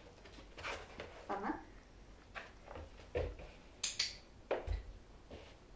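A person's footsteps and a dog's paws moving on a wooden floor: scattered soft thumps and scuffs, with a sharp high click just before four seconds in.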